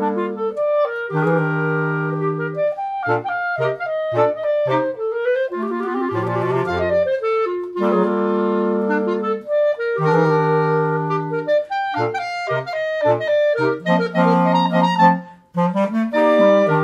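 Clarinet quartet, clarinets with a bass clarinet on the lowest part, playing held chords broken up by short detached notes and a quick run near the middle. There is a brief pause near the end.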